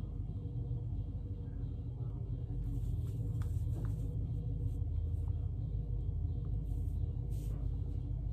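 Steady low hum, with a few faint light clicks of small plastic model-car parts being handled.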